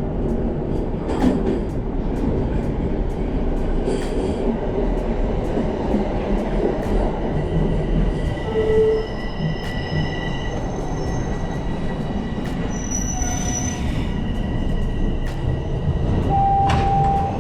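Subway train running on the rails with a steady rumble, high-pitched wheel squeal that comes and goes, and occasional clicks.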